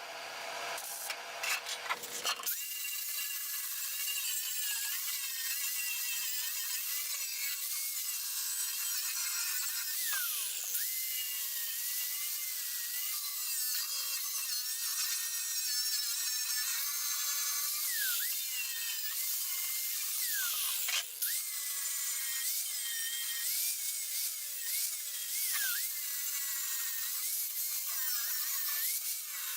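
Angle grinder grinding down fresh welds on steel sheet. Its high whine dips in pitch again and again as the disc bites, and it starts about two seconds in after a short irregular crackle. It cuts out briefly about twenty seconds in.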